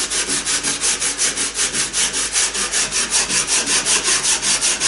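Sandpaper rubbed by hand along a small wooden inside stem of a strip-built kayak model, shaping it. Rapid, even back-and-forth scratching strokes, about five a second.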